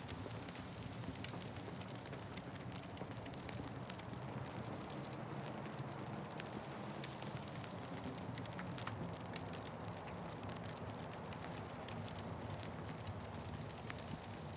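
Wood fire crackling: many small sharp pops at irregular intervals over a steady low rumble of the flames.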